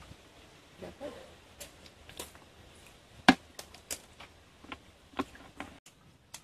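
Hands sorting a net catch of small shrimp and debris in basins of water: a scatter of sharp, irregular clicks and knocks, the loudest about three seconds in.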